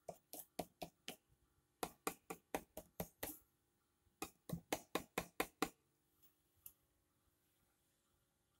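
Paintbrush dabbing acrylic paint onto a painting on a hard board: quick taps, about five a second, in three short runs, with one lone tap later on.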